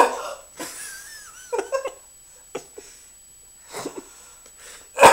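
A man hiccuping hard: one loud, sharp hiccup at the start and another near the end, with softer squeaky giggles and breaths in between.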